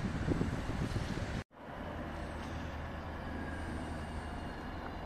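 Gusty rumble of wind on the microphone over street traffic, cut off abruptly about a second and a half in. After that comes a steady low hum of city traffic with a tram approaching in the distance.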